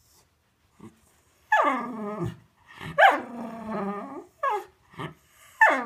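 A Cocker Spaniel vocalizing in a series of drawn-out calls, each starting high and sliding down in pitch, with a couple of short calls in between. She is demanding to be taken for a walk.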